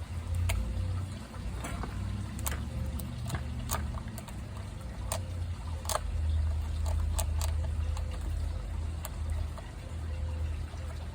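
Irregular small clicks and taps of hand work on a partly dismantled chainsaw as plastic bag is picked out of it, over a steady low rumble.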